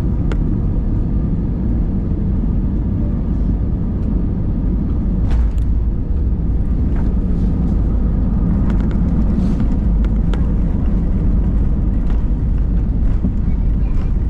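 Airliner cabin noise during landing: a steady, loud low rumble with scattered light clicks and rattles.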